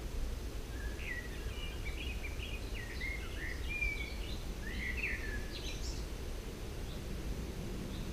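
A songbird singing a run of quick chirping notes and short whistles for about five seconds, starting about a second in, over a steady low rumble.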